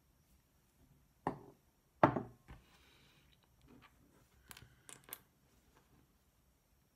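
Small objects being set down and handled on a workbench cutting mat: two knocks about a second apart, the second the loudest, then lighter taps and clicks near the middle and end.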